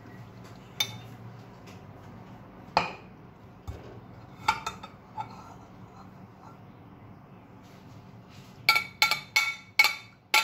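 Tea-straining utensils (strainer, pan and cup) clinking: scattered light clinks, then a quick run of about five ringing metal taps near the end.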